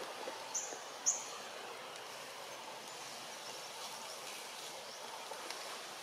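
Steady outdoor background hiss with two short, high chirps in quick succession about half a second to a second in.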